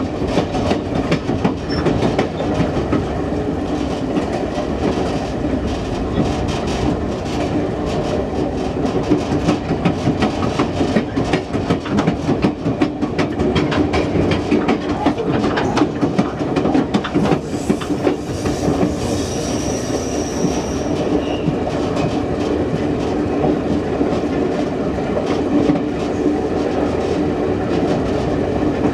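Passenger train cars rolling over the track, heard from the rear of the train: a steady rumble and hum broken by frequent short clicks from the wheels. About two-thirds of the way through, a thin high squeal rises briefly above it.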